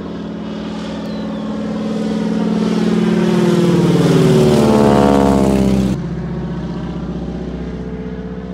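Crop-duster biplane's propeller engine running as it flies low overhead, growing louder as it comes close, with the pitch sweeping as it passes. About six seconds in the sound drops abruptly to a quieter, steady engine drone.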